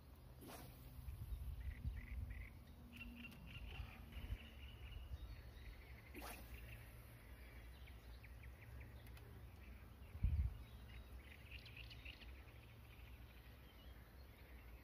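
Birds chirping in short scattered bursts over a low, steady wind rumble on the microphone, with a sharp click about half a second in, another around six seconds, and a low thump about ten seconds in.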